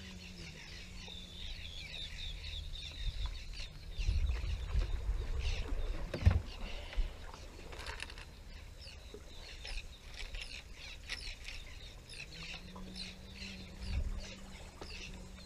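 A flock of birds chattering with many short, quick chirps. A few low bumps and rumbles break in, loudest about four to six seconds in, with a sharp knock just after six seconds.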